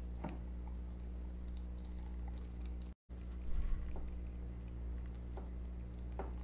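Faint wet squishing of gloved hands rubbing a chili marinade into raw chicken legs in a bowl, over a steady electrical hum. The sound cuts out for a moment about three seconds in.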